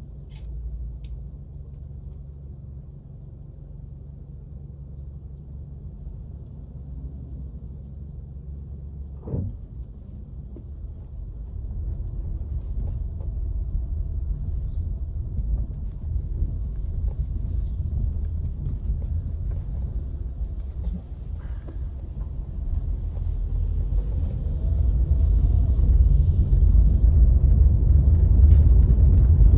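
Low rumble of a car driving, getting louder about twelve seconds in and again near the end, with a single knock about nine seconds in.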